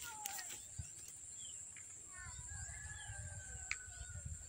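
Birds calling: many short falling chirps, with one longer held whistle from about two seconds in. A faint steady high-pitched drone sits behind them.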